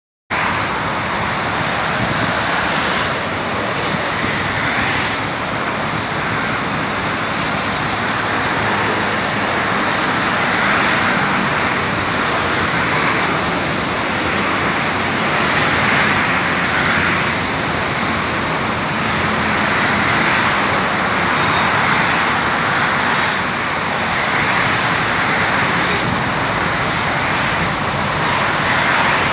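Road traffic on a multi-lane city road: a steady hiss of tyres and engines from cars, vans and trucks. It swells and fades every two to three seconds as vehicles pass.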